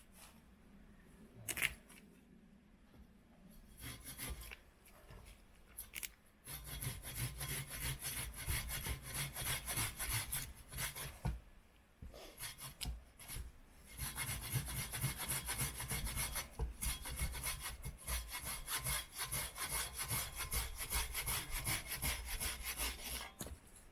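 Hand saw cutting wood with quick back-and-forth strokes, in two long runs separated by a brief pause. A single sharp knock sounds a few seconds before the sawing starts.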